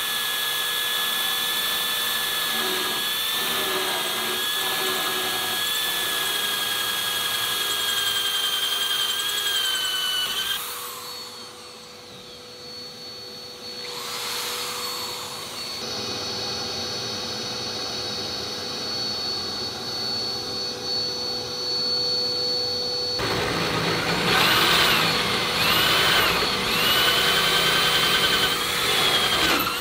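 Corded drill with a hole saw cutting rod-holder holes through a boat's fiberglass gunwale: a steady motor whine that stops about ten seconds in. A quieter steady hum fills the pause, then the drilling starts again, louder and wavering, for the last several seconds.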